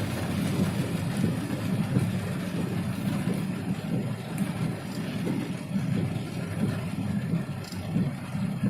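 Car driving through deep floodwater: its engine running steadily under a continuous rush of water churning around the car, heard from inside the cabin.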